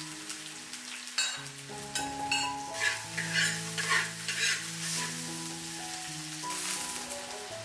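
Food sizzling as it is stir-fried in a pan, with a spatula scraping and stirring in a run of quick strokes from about a second in to the middle.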